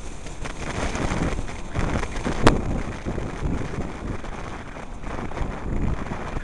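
Wind buffeting the microphone of a helmet-mounted camera on a moving scooter, with the scooter's engine and road noise underneath. A sharp click about two and a half seconds in.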